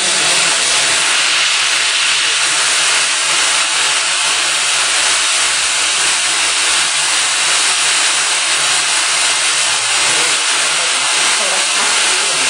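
Friction stir welding machine running a rotating tool along a seam in an aluminium plate: a loud, steady hiss with a faint low machine hum underneath.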